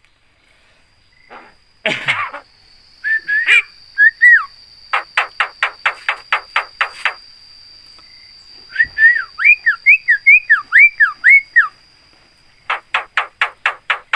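Javan myna calling: a harsh rasping call about two seconds in, short rising-and-falling whistled notes, and runs of rapid sharp chattering notes, about four to five a second.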